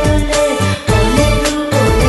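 Recorded dance music playing over loudspeakers, with a steady bass beat under held melody notes.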